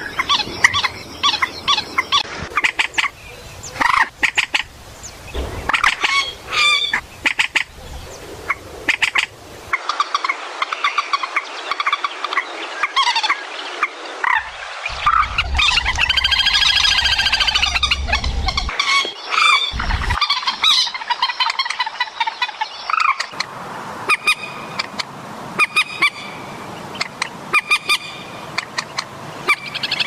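Rail-family waterbirds (swamphen and moorhen type) calling: short harsh notes repeated in irregular runs, most continuous in the middle.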